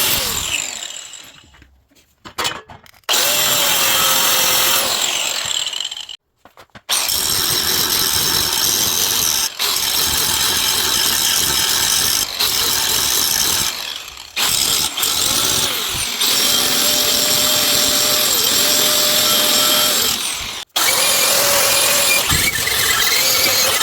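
Handheld electric power tool running in several bursts of a few seconds each, spinning up at the start of each run and winding down at the end, with a steady hiss of the cutting or grinding work.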